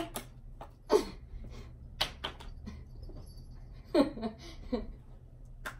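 Playing cards thrown by hand, smacking and slapping against furniture and walls in a series of sharp hits a second or two apart, mixed with a few short grunts.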